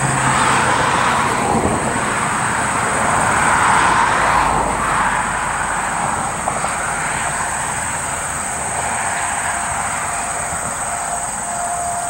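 A vehicle passing by: a rush of tyre and engine noise that swells, is loudest about four seconds in, then fades. A steady high insect trill runs underneath.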